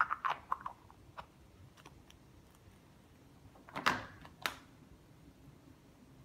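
Hollow plastic Easter eggs clicking and knocking as they are handled: a few light clicks in the first second, then two sharper plastic knocks about half a second apart near the middle as an egg is taken from the plastic egg carton.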